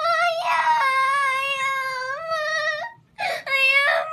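A young girl crying for joy in long, high wails. A brief catch of breath about three seconds in breaks them, and a short wail follows.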